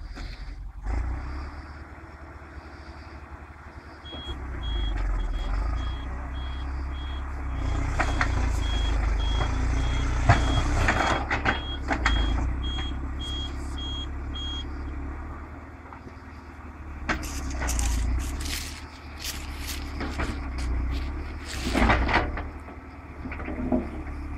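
Volvo BM EL70 backhoe loader's diesel engine running under load while it works. A reverse alarm beeps steadily, about one and a half beeps a second, for roughly ten seconds from a few seconds in. Near the end come sharp clanks and knocks of the working machine.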